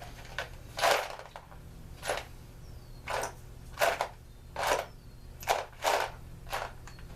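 About eight short, rough strokes of noise, unevenly spaced, from hand work cleaning small-engine parts on a workbench, over a steady low hum.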